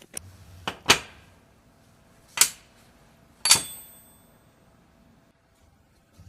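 Sharp metallic clinks of small metal parts or tools being set down or knocked together, four in all; the last rings on briefly like struck steel.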